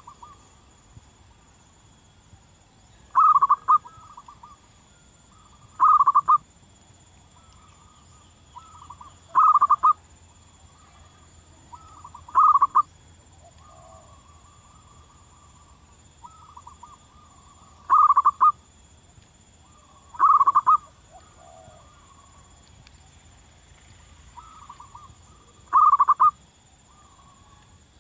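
Zebra dove cooing: seven loud short bursts of rapid cooing notes at irregular intervals of two to five seconds, with softer cooing notes between them.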